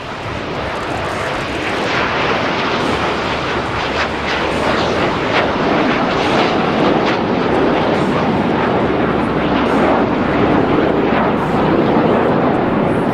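Formation of CT-114 Tutor turbojet trainers flying low past, a loud, steady jet-engine rush that builds over the first couple of seconds and then holds.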